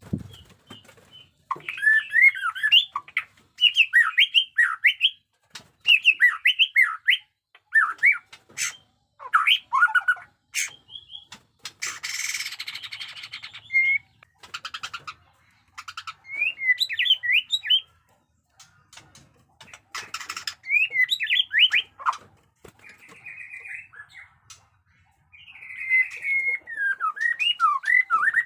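White-rumped shama singing: quick runs of sweeping whistled notes with short pauses between them. About twelve seconds in comes a harsh rasping burst, and there are buzzy held notes later on and near the end.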